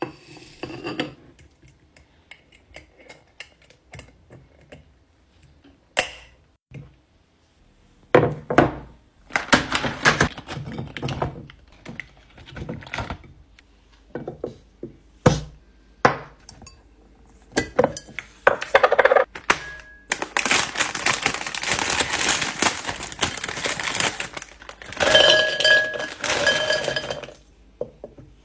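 Food containers, jars and packages being handled and set down: a long run of separate knocks, thunks and glassy clinks, with a longer stretch of steady rustling noise about twenty seconds in.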